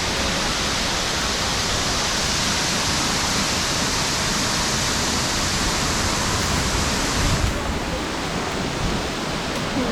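Steady rush of water falling at a partly frozen waterfall, an even hiss; the highest part of the hiss drops away about seven and a half seconds in.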